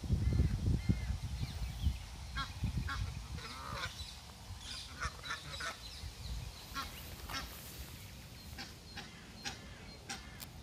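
Geese and goslings calling: many short honks and peeps scattered through, with a low rumble during the first two seconds.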